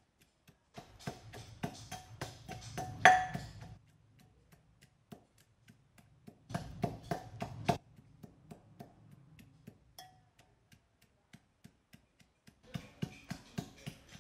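Metal pestle pounding in a brass mortar: fast runs of ringing metallic strikes, with light taps in between and the pounding picking up again near the end.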